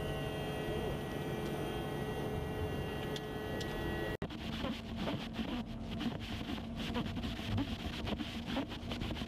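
Steady machine hum with several held tones. About four seconds in, after a brief dropout, it gives way to the sound inside the cab of a self-driving electric truck as it drives: rough, fluttering road and wind noise with a steady low hum.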